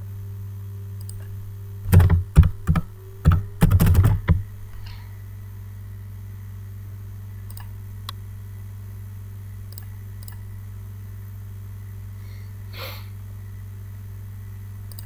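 Computer keyboard typing: a quick, irregular run of loud keystrokes about two seconds in, lasting a couple of seconds, then a single faint click near the end, all over a steady low electrical hum.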